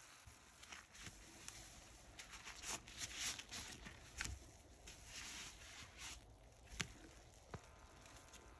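Faint wet crackling of thick soap suds, with scattered small sharp pops as the foam settles and bubbles burst.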